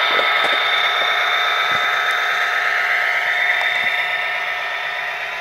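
MTH SD70ACe model locomotive's Tsunami sound decoder playing a running diesel engine through the model's small speaker, a steady whirring sound with a thin high whine, growing slightly fainter toward the end.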